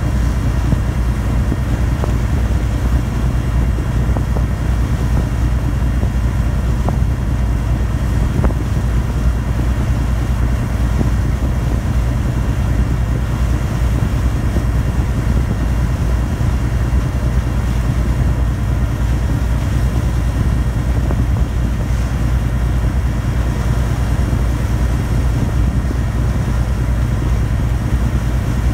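Meon Kaiun ferry's diesel engines running steadily underway, heard on board as an unbroken low drone with a wash of noise above it.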